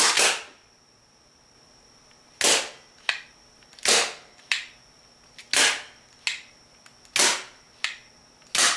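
Wooden pull-pin-release rubber band repeater pistol firing five times, about one shot every one and a half seconds. Each shot is a sharp snap as a band lets go, and most are followed a moment later by a fainter click.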